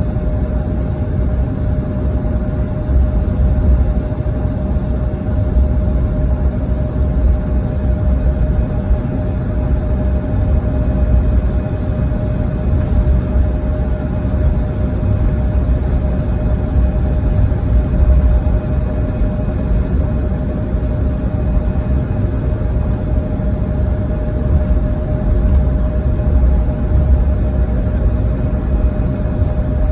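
Airliner cabin noise while taxiing after landing: a steady low rumble from the engines at idle and the wheels rolling on the taxiway, with a steady mid-pitched hum over it.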